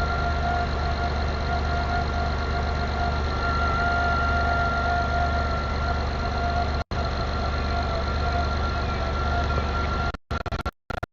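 Car engine idling steadily, with a steady high whine over the low running sound. It cuts out for an instant about seven seconds in and breaks up into short gaps near the end.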